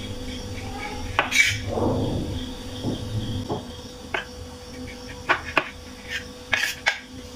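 Kitchen knife clicking and scraping against a ceramic plate as it cuts the crusts off slices of white bread: several sharp clicks, a pair about five and a half seconds in, over a faint steady hum.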